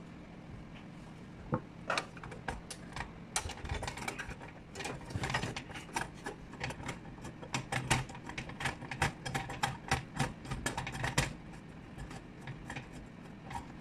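Irregular sharp clicks and light metal taps as hands work at the lens housing of a DeSisti studio spotlight. The clicks come thickest in the middle and stop about two seconds before the end.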